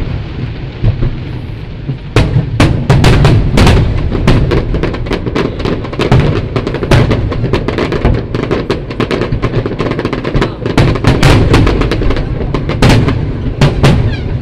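Aerial fireworks shells bursting in rapid, overlapping succession: dozens of sharp bangs over a continuous low rumble.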